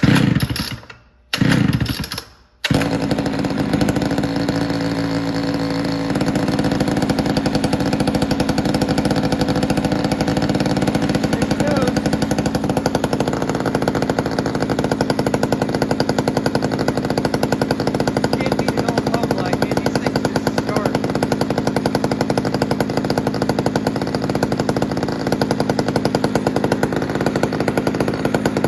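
Homelite Super XL two-stroke chainsaw being pull-started from cold on choke: two short bursts that die away, then about three seconds in it catches and keeps running steadily, a little louder from about six seconds in.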